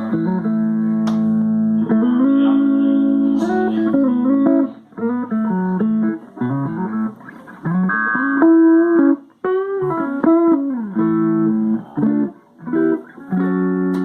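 Stratocaster electric guitar played through a small amp with a clean, twangy tone: sustained notes and chords, with several strings bent up and let back down, in phrases broken by short pauses.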